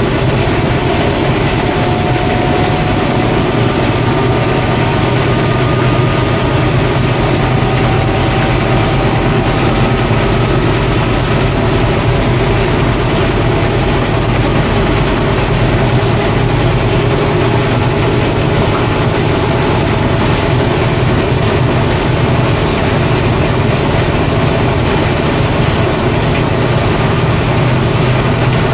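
Beko WDC7523002W washer/dryer in its final spin: the drum turns at high speed with a loud, steady hum and a faint motor whine that creeps up in pitch over the first dozen seconds.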